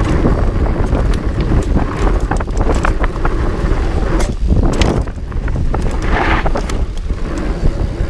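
Trek Farley EX 8 fat bike riding fast down a bumpy dirt trail: steady tyre rumble and wind buffeting the microphone, with frequent clicks and rattles from the bike over the bumps.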